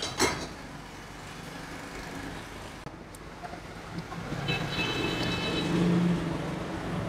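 A passing motor vehicle, its sound swelling from about four seconds in and easing near the end. A sharp click comes just after the start.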